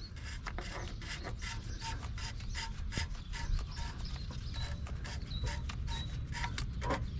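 Oil filter housing cap on an Audi S3's EA888 engine being screwed back on by hand. The threads give a dense run of small clicks and rubbing as the cap turns.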